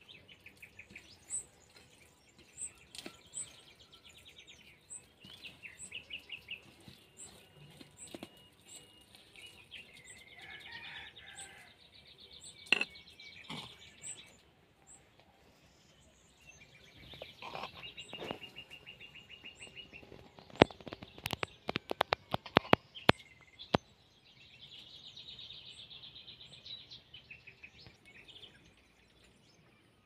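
Small songbirds singing in the trees, with short high chirps repeating every half second or so and several longer trilled phrases. A run of sharp clicks about twenty seconds in is louder than the birdsong.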